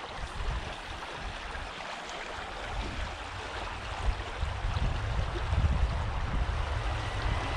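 Shallow stream riffle running steadily over stones. A low wind rumble on the microphone grows stronger from about three seconds in.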